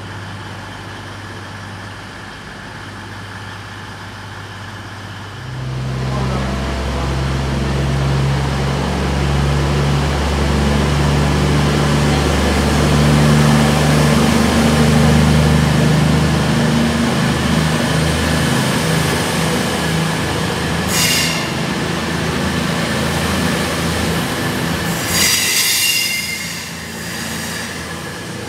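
CrossCountry Voyager diesel multiple unit: its underfloor diesel engines hum steadily at first, then power up about five seconds in as the train moves off along the platform. The engine note steps up in pitch several times. Near the end the wheels squeal in high-pitched bursts on the curved track.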